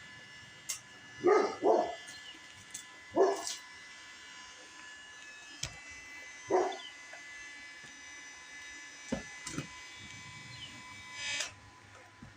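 A dog barking four times: two quick barks about a second in, another about three seconds in and one more midway. A few sharp knocks and clicks sound between them.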